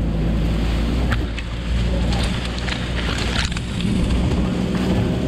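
Sherp ATV's diesel engine running steadily as the machine pushes through brush and saplings. Several sharp crackles of branches snapping and scraping against it are heard, most of them in the first few seconds.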